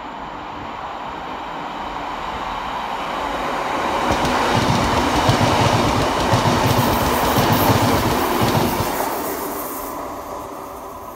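Two coupled Class 150 Sprinter diesel multiple units running out of a tunnel and past. The diesel and rail noise swells to a peak about halfway, with a rapid clatter of wheels as the carriages go by, then fades away.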